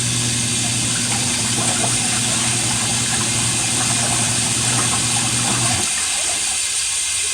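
Twin-tub portable washing machine running: a steady electric motor hum under loud rushing water. The motor hum cuts off about six seconds in while the water keeps rushing.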